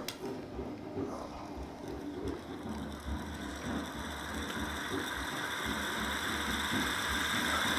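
Homemade fidget-spinner pulse motor starting up: the spinner, driven by magnets passing a coil switched by a Hall-effect sensor, spins with a fast mechanical clicking rattle that grows steadily louder as it gathers speed, with a faint steady whine above it.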